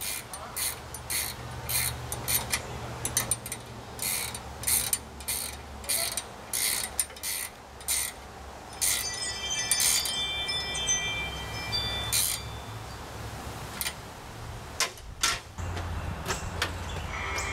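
Hands fitting hardware onto a semi truck's pogo stick that holds the coiled air lines: a run of sharp metallic clicks and clinks, with a brief ringing in the middle.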